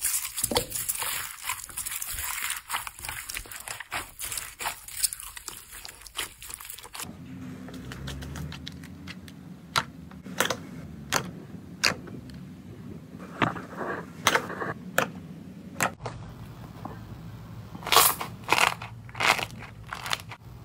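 A hand squishes clear slime packed with foam beads, making dense crackling and crunching. About seven seconds in this gives way to a thick, bubbly blue slime being pressed and squeezed by hand. It gives scattered sharp pops over a low steady hum, with a quick cluster of louder pops near the end.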